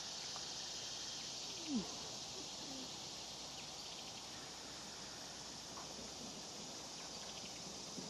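Steady outdoor drone of insects such as crickets, high-pitched and unbroken. About two seconds in there is one short, louder sound that slides down in pitch.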